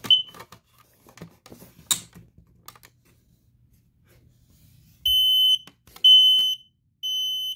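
Voice smoke and carbon monoxide alarm in test mode sounding three loud, high-pitched half-second beeps in a row, the temporal-three fire alarm pattern. Before the beeps come a short chirp and a few scattered clicks.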